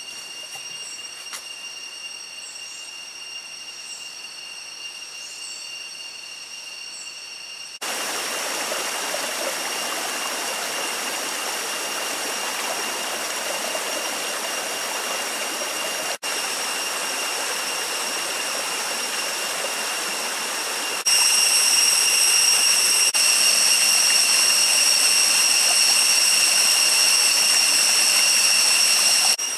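Tropical rainforest cicadas droning steadily at several high pitches, with a few short chirps in the first seconds. A stream's rushing hiss comes in sharply about eight seconds in, and the cicada drone gets much louder about twenty-one seconds in.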